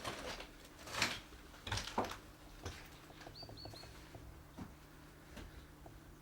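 A few short scuffing and crunching noises in the first two and a half seconds, then three quick high chirps from a small bird about three and a half seconds in, over a faint steady low hum.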